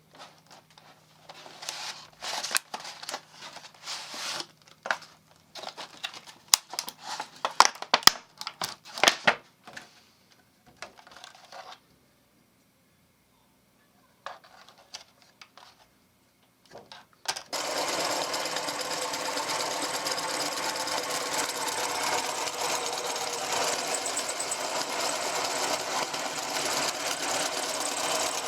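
Scattered clicks and knocks, then about two-thirds of the way through an electric meat grinder's motor starts suddenly and runs steadily.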